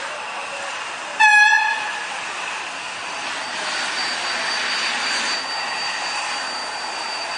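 Steam locomotive No. 461 gives one short whistle blast about a second in, then rolls slowly into the platform with a steady hiss and rumble. A thin, high, steady whine joins the noise about halfway through.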